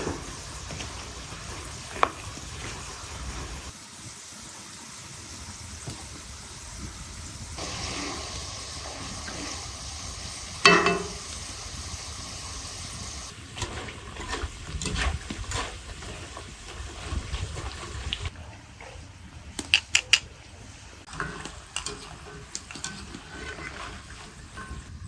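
Food frying and sizzling, with utensils clinking and knocking against a pan or dish as it is stirred; the loudest is a sharp clack about eleven seconds in. The sizzle changes abruptly several times.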